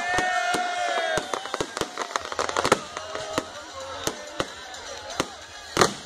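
Fireworks display going off: a rapid, irregular string of bangs and crackles, with a louder bang near the end. A held, slightly falling high tone sounds through the first second.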